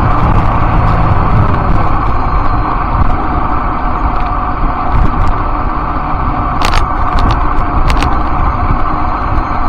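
Steady wind and road rumble from riding along a paved street, with two sharp rattling clicks about a second apart late on.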